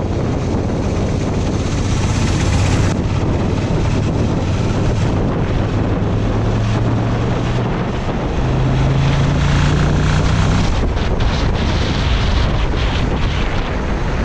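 Motorcycle engine running as the bike gathers speed, its note rising slowly and stepping higher about eight seconds in, then dropping out near eleven seconds. Wind rush on the microphone runs under it and dominates at the end.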